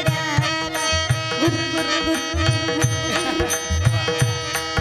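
Kirtan accompaniment music: a harmonium holding steady chords over a regular drum beat, with sharp cymbal clicks on the beat.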